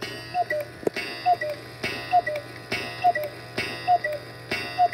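Antique German cuckoo clock calling the hour: six two-note "cuck-oo" calls, high then low, about one a second, each with a click from the mechanism.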